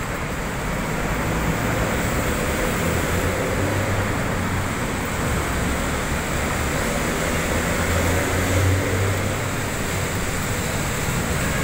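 Steady din of city road traffic beneath an elevated expressway, with a deeper low hum swelling twice, about four and eight seconds in.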